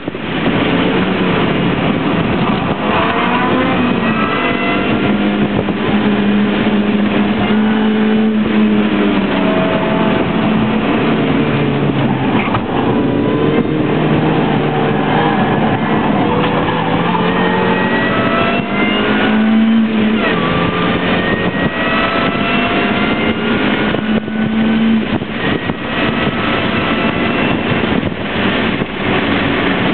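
Mini Cooper's four-cylinder engine under hard track driving, heard from inside the cabin. Its pitch climbs under acceleration, drops back and climbs again several times, over steady wind and tyre noise.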